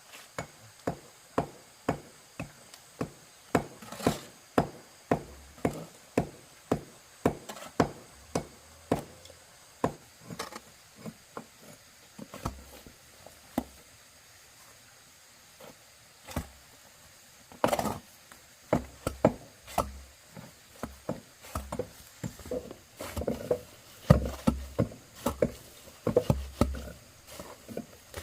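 Knife chopping on a wooden cutting board, steady strokes about two a second, thinning out midway and picking up again with faster, heavier strokes near the end.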